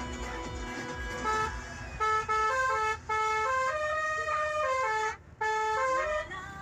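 A vehicle's musical horn playing a quick tune of short stepped notes, starting about a second in and breaking off briefly near the end, over low road rumble.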